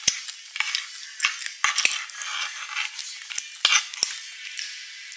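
Metal spoon scraping across a bamboo tray and scooping small chocolate pillow cookies, with a scratchy rasp broken by a dozen or so sharp clicks as the spoon knocks against the tray and the cookies.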